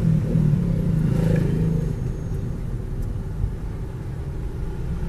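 Car engine and road rumble heard from inside the cabin while driving. A low hum is stronger for the first two seconds, then eases off.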